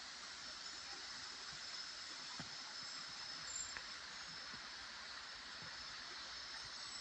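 Faint, steady rush of flowing river water, with a thin, steady high-pitched whine over it and a few soft ticks.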